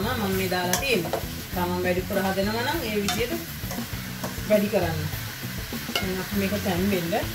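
Wooden spoon stirring chunks of kekiri melon curry in an aluminium wok, scraping against the metal in repeated short strokes, over the sizzle of the curry frying.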